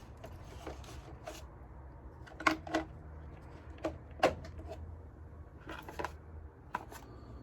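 Chainsaw parts and tools being handled: a few scattered sharp clicks and knocks, two close pairs near the middle, over a low steady hum.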